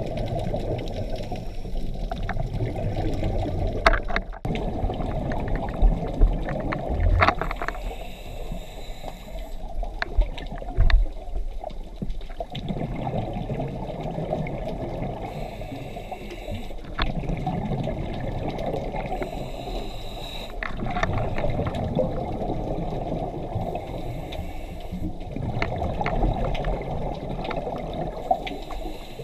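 Scuba diver breathing through a regulator underwater: a short hiss on each inhale, about every four to five seconds, alternating with the bubbling rush of exhaled air. A few sharp knocks come in the first half.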